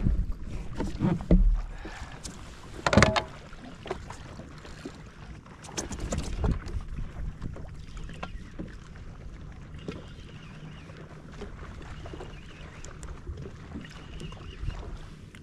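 Jet ski engine idling with a steady low hum, over a wash of water and wind, broken by a few loud thumps in the first seven seconds.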